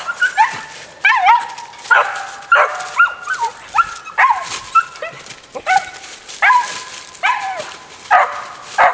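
Tree dogs barking treed at a cat up a tree: a steady string of loud barks, one to two a second, many ending in a falling yelp.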